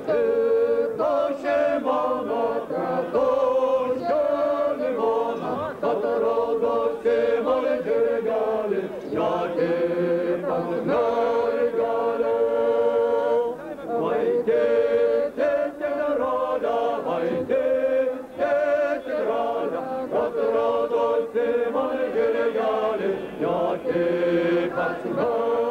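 A group of voices singing a chant-like song, steady and continuous.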